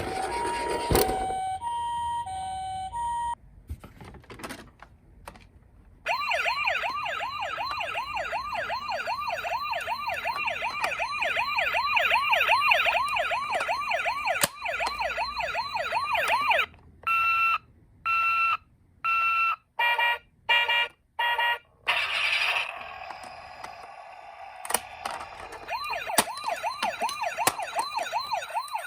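Several different electronic ambulance sirens in turn from toy ambulances. First a hi-lo two-tone for about three seconds, then after a short pause a fast sweeping yelp for about ten seconds. Then a two-tone cut into short beeps, and another fast yelp near the end.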